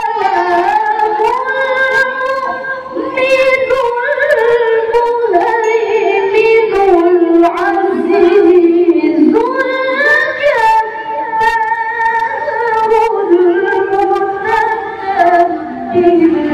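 A woman reciting the Quran in the melodic tilawah style through a microphone, holding long notes and sliding and ornamenting between them.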